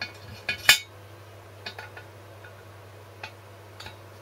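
Engine valve clinking in its guide and against its freshly lapped seat as it is dropped into a Briggs & Stratton 5 hp cylinder block: a few sharp metallic clicks, the loudest just under a second in.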